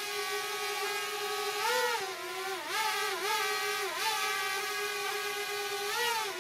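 Quadcopter drone hovering overhead, its propellers giving a steady whine whose pitch swings up and down several times as it is manoeuvred.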